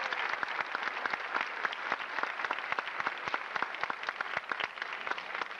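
Audience applauding, a dense patter of many hands clapping that eases off slightly toward the end.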